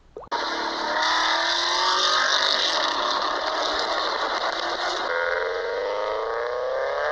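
Recorded car engine and exhaust sounds played back by a car-sound quiz app. An engine pulls with its pitch rising slowly, then about five seconds in a second clip starts, an engine accelerating with its pitch climbing steadily.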